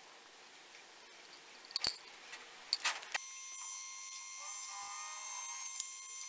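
A few sharp light clicks of small metal hand tools on a copper plate, then, about three seconds in, a drill press starts to be heard running steadily with a high whine as its twist bit drills through the copper sheet.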